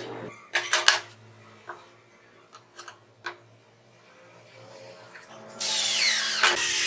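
A few sharp clicks and knocks of parts being handled, then, near the end, a power drill starts cutting into wood and runs loudly with a wavering pitch.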